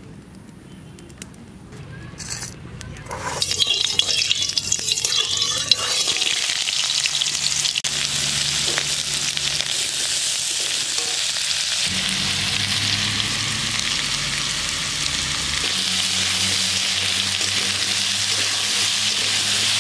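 Cubed potatoes frying in hot mustard oil in a metal kadai, sizzling steadily as a metal spatula stirs them. The sizzle starts suddenly about three and a half seconds in, with a few clatters, then holds steady.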